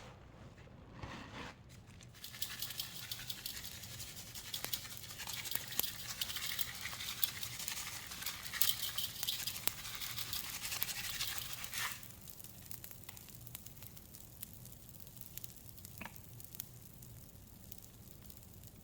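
Mr. Bubble Bath Crackles popping and crackling in wet soap: a dense fizzing crackle starts about two seconds in and drops off sharply near twelve seconds, after which only a few scattered pops remain.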